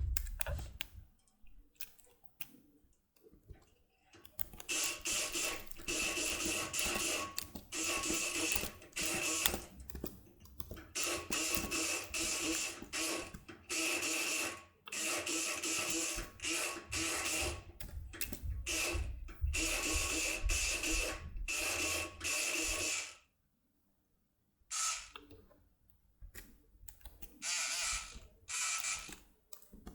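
Multipick Kronos electric pick gun buzzing in repeated bursts of a second or two as its pick vibrates in a lock cylinder, with a few clicks before it starts about four seconds in. It stops for about a second and a half near the end, then runs again in shorter bursts.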